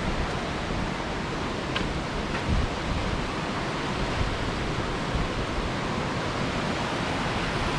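Steady rush of white water from river rapids.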